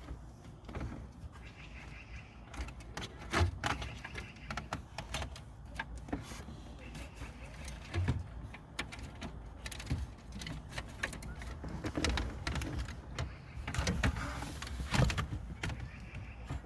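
Irregular clicks, taps and rustling of hands working in a car dashboard, handling and plugging in wiring harness connectors for an aftermarket head unit.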